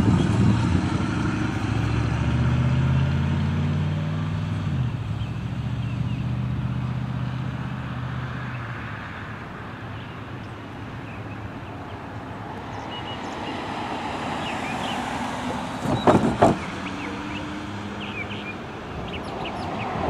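GE diesel-electric freight locomotives' engines running in a low, steady drone that drops in pitch about four to five seconds in and then grows quieter, as a CSX train led by AC44CW units approaches. A brief loud burst comes about sixteen seconds in.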